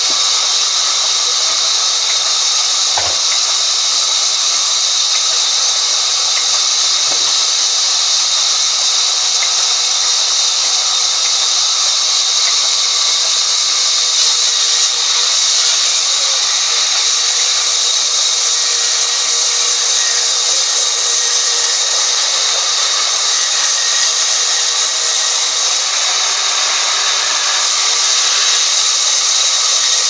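Vertical band saw in a sawmill running steadily as its blade rips lengthwise through a log, making a constant high hiss.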